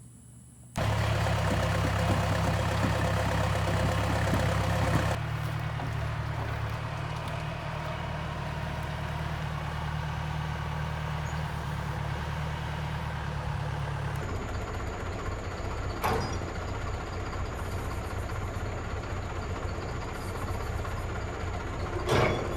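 Case backhoe's diesel engine running steadily. It comes in abruptly under a second in and is loudest for the first few seconds. Two sharp knocks come later, one about sixteen seconds in and one near the end.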